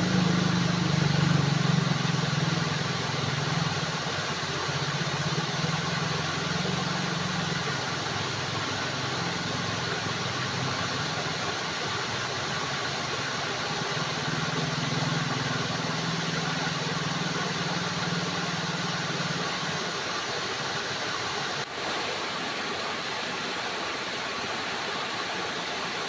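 Steady rush of flowing, splashing water. A low hum sits under it for about the first twenty seconds, then fades away.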